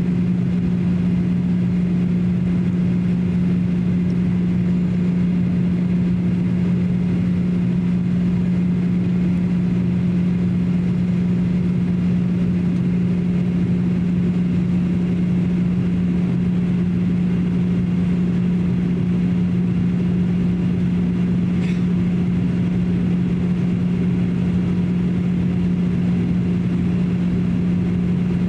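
In-flight cabin noise of a Boeing 737-800: the steady drone of its CFM56-7B turbofan engines and the airflow past the fuselage, with a strong, even low hum throughout.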